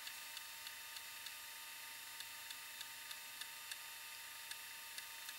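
Commodore 1541 floppy disk drive with its cover off, formatting a disk under JiffyDOS: a faint steady whir with light ticks about three times a second as the head steps from track to track.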